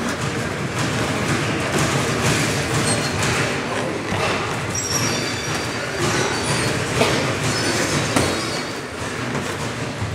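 Boxing mitt work: gloves thudding on focus mitts and feet shuffling on the ring canvas over a steady, noisy gym din, with two sharper smacks about seven and eight seconds in and a few short high squeaks.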